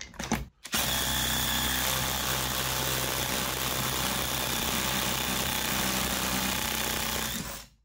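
DeWalt DCF887 cordless impact driver on speed setting 3, hammering steadily as it drives a screw into a hard wooden stump under full load. It runs for about seven seconds, then cuts off suddenly near the end when the screw snaps.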